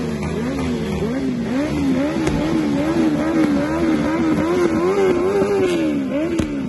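Motorcycle engines revved over and over while standing, in quick throttle blips about twice a second, each rev rising and falling in pitch.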